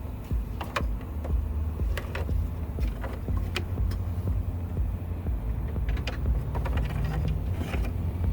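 Light clicks and taps of a plastic coolant line and its fittings being handled, over a steady low vehicle rumble.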